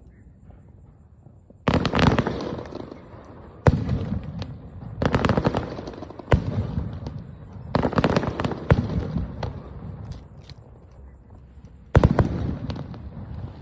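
Aerial firework shells bursting in a string of sudden bangs, about seven in all, each trailing off in a second or two of crackle and echo. There is a pause before the last burst near the end.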